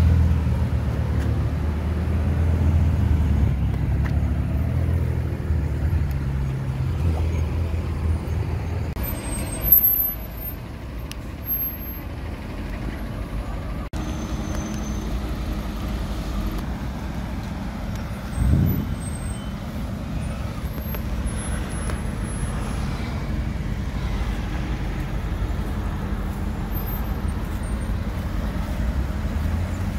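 Sports car engines in city traffic: a Ferrari F8 Tributo's twin-turbo V8 runs at low revs for the first nine seconds or so. After that, other cars drive past over steady traffic noise, with short loud bursts about ten and eighteen seconds in.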